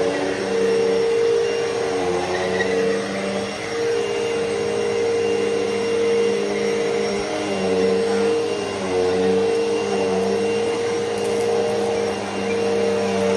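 Hoover Elite Rewind upright vacuum cleaner running steadily, a constant motor hum whose pitch sags briefly a few times.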